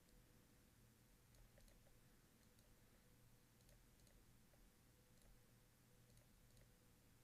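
Near silence: room tone with a faint steady hum and scattered faint clicks, a few every second or two.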